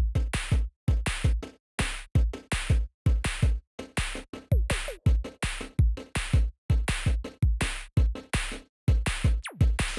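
Electronic music with a heavy drum-machine beat and deep kick drum, chopped into short bursts separated by brief silent gaps. A sweep falling in pitch comes near the end.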